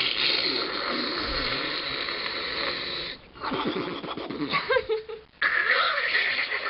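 A person making silly vocal noises: a raspy, wheezy, snore-like noise held for about three seconds, then a run of shorter, broken throaty noises.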